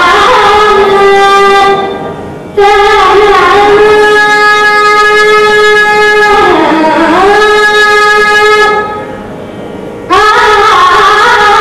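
A girl singing Carnatic vocal music solo, holding long vowel notes with a swooping ornamental dip in pitch near the middle. Twice her voice fades away and then comes straight back in on a new phrase.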